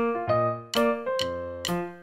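Background music: a piano-like keyboard plays a bright melody, its notes struck about twice a second and dying away after each strike.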